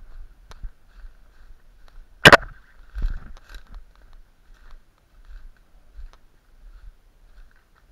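Footsteps through dry leaf litter and twigs on a forest floor, with one sharp, very loud crack a little over two seconds in, followed by a duller thump.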